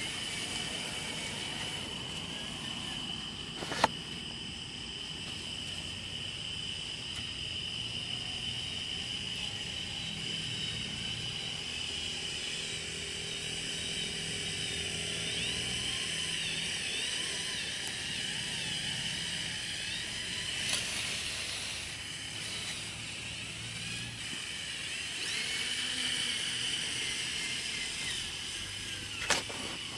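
Electric drive motors and gearing of a homemade four-wheel-drive RC tractor whining steadily as it pushes dirt with its dozer blade. Three sharp knocks are heard, the loudest about four seconds in.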